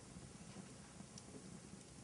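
Quiet fireplace crackle: a soft steady hiss of burning with a few faint, scattered pops.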